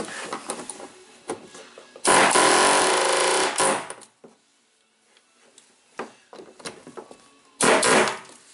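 Pneumatic air chisel hammering on the rusted steel lock ring of a 2002 Chevy Silverado's fuel pump, to break its tangs loose. One burst of about a second and a half starts about two seconds in, and a shorter burst comes near the end, with light taps and clicks between.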